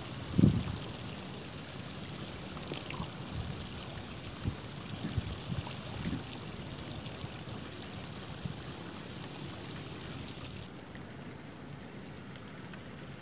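Wind rumbling and buffeting on the microphone, with a faint high chirp repeating about once a second. The chirping stops near the end.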